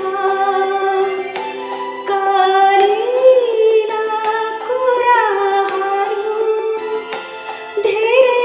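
A woman singing a Nepali song solo, holding long notes with a wavering pitch that swells and bends, over instrumental backing.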